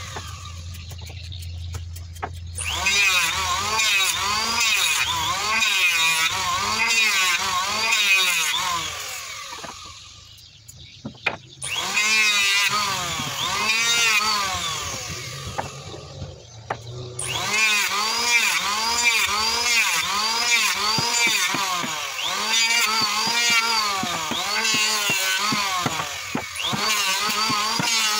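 Electric hand planer shaving a wooden plank, its motor whine dipping and recovering over and over as the blades bite on each pass. The tool goes quieter briefly about ten seconds in and again around sixteen seconds.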